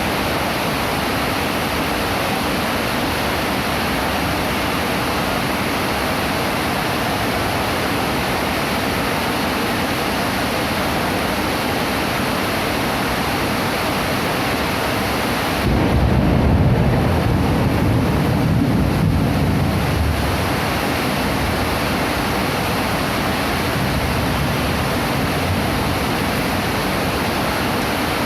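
Heavy rain falling steadily, with a low rumble of thunder that starts suddenly past the middle and fades over about four seconds.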